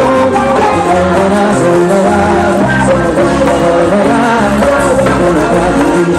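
Live band music with a steady bass line and a melodic lead, with singing.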